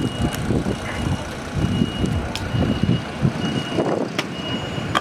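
A bus's reversing alarm beeping steadily, a high single-tone beep about once a second, over a low engine rumble. Three sharp clicks cut through it.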